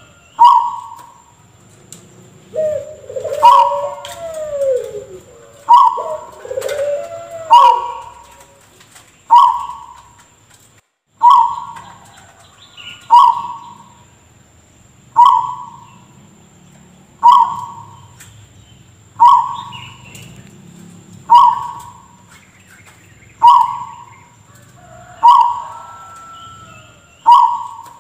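Zebra dove (perkutut) repeating a short, cough-like call about every two seconds. In the first several seconds other gliding bird calls mix in, and a faint steady high-pitched whine runs underneath.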